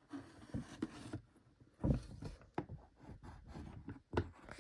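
Handling of a toy's packaging: a few scattered knocks with faint rubbing and rustling in between.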